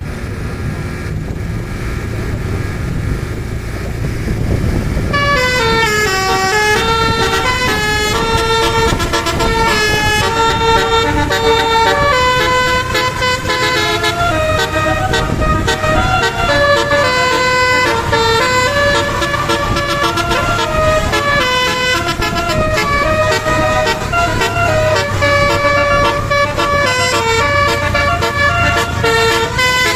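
Multi-tone telolet horn on a basuri vehicle playing a fast tune of changing notes, starting about five seconds in, over the vehicle's running engine.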